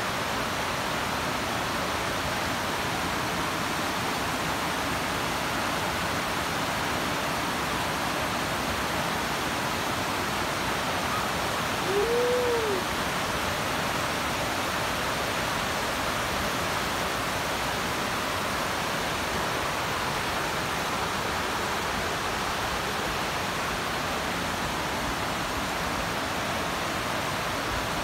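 Steady rain falling in a continuous, even hiss. About halfway through, a short tone rises and falls once, lasting under a second.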